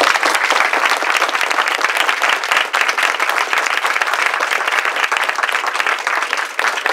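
Audience applauding: many people clapping at once, a dense, even patter of claps.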